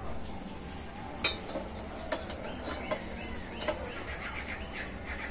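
Metal tongs clinking against small steel bowls and a steel plate as the bowls are lifted out of a wok: one sharp clink about a second in, then three lighter ones over the next few seconds. Birds chirp faintly behind.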